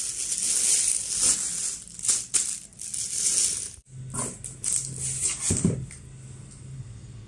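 Clear plastic wrapping crinkling around a folded green screen cloth as it is squeezed and handled. About four seconds in it gives way to softer rustles and light taps of a cardboard box being moved in its carton.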